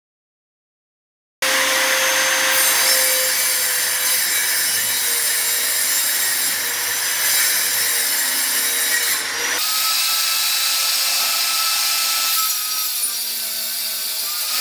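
Circular saw mounted under a saw table cutting a melamine-faced particleboard panel: the blade's steady whine with the loud rasp of the cut. It starts suddenly after about a second and a half of silence, and its tone shifts abruptly near ten seconds in.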